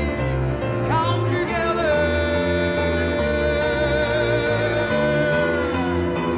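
Live jazz band playing: a lead melody slides up about a second in and holds one long note, over a bass line walking from note to note.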